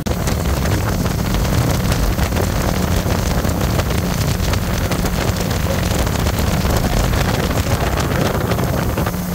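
Motorboat underway at speed: the engine's steady low drone mixed with water rushing along the hull and wind buffeting the microphone.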